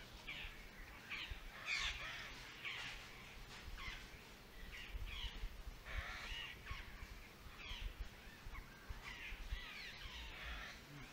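Short, harsh animal calls repeated every second or so, faint and sweeping in pitch, over a low background rumble.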